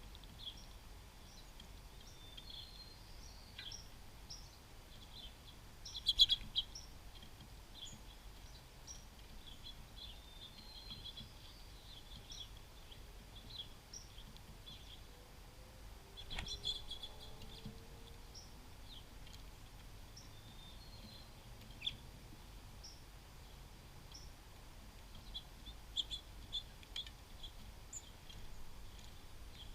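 Small songbirds giving short, high chirps scattered throughout, with louder clusters of calls about six seconds in, around sixteen seconds and near the end.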